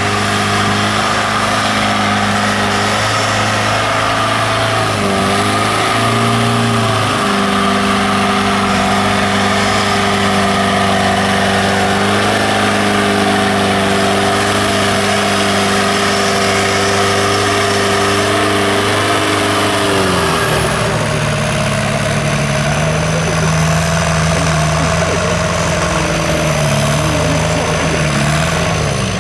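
Engine of a 4x4 off-road race vehicle running at a steadily held speed, with a brief dip and recovery in pitch about five to seven seconds in. About twenty seconds in the revs drop to a lower, slightly wavering speed.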